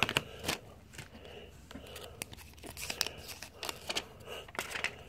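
Trading cards in hard plastic top-loaders and sleeves being handled and shuffled: scattered light plastic clicks and brief rustles.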